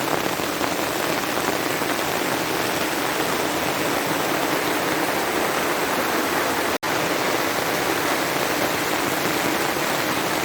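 Steady hiss of falling water, even and unbroken, that cuts out for an instant about seven seconds in.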